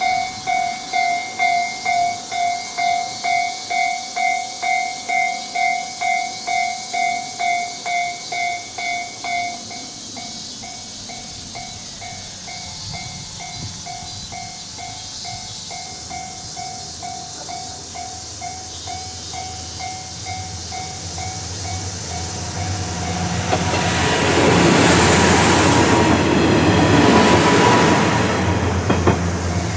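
Japanese level-crossing warning bell ringing rapidly, about two strokes a second, loud at first and softer after about ten seconds. A JR Hachikō Line diesel railcar then approaches and passes loudly through the crossing, its rumble swelling over the last ten seconds while the bell rings on.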